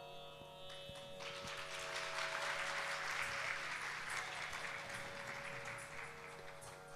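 Audience applauding, starting about a second in, swelling and then slowly tapering off, with a faint steady drone underneath.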